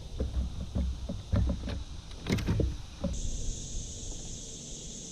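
Irregular knocks, thumps and rattles of a fish being landed and handled in a plastic fishing kayak. About three seconds in these give way to a steady high drone of insects.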